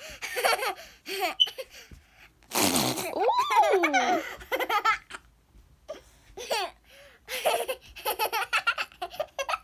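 A small child laughing in repeated bursts of giggles, with a spluttering fart noise about two and a half seconds in.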